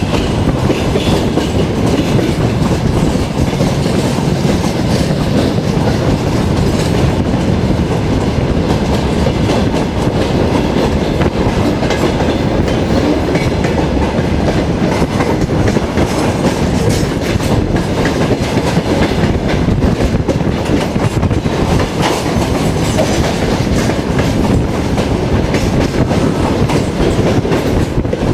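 Passenger train running at speed, heard from a carriage window: a steady loud rumble of wheels on rails with clickety-clack.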